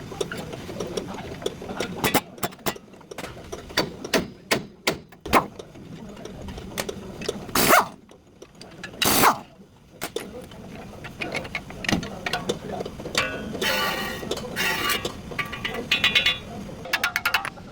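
Metal tools and parts knocking and clinking during front wheel bearing work on a Toyota Hilux, with two louder noisy bursts a little after a third of the way in, metallic ringing later on, and a quick run of even clicks near the end.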